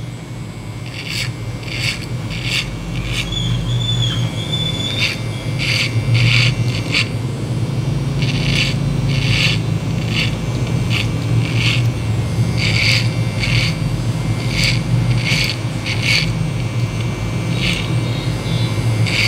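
Corded Andis single-blade hair clipper running with a steady buzz while cutting hair over a comb. Its blade rasps briefly with each short stroke, about one or two strokes a second.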